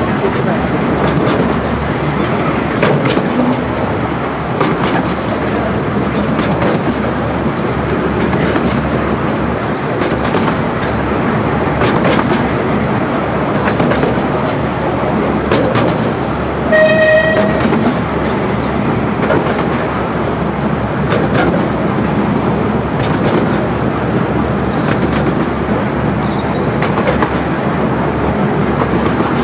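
Riding in an open carriage of a 15-inch gauge miniature railway train: a steady rumble of wheels on the track, with irregular clicks over the rail joints. A little past halfway the locomotive gives a single short toot.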